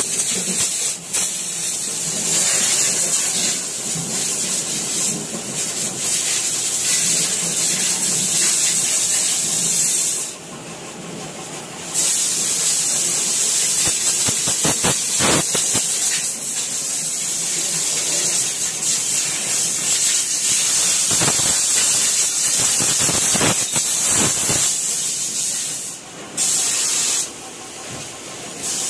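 Compressed-air spray gun hissing steadily as it sprays underbody paint onto a car's underside, the hiss stopping when the trigger is released for about a second and a half a little over a third of the way in, and twice more near the end.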